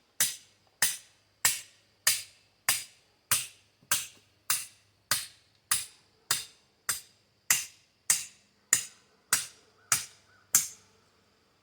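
A hatchet hammering on the spine of a sword, batoning the blade: about eighteen sharp knocks, evenly spaced a little over half a second apart, stopping near the end.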